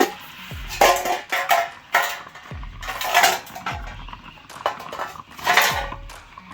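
Background music with a deep, falling kick-drum beat about once a second, overlaid by loud, irregular metallic clanks and clinks that ring on briefly.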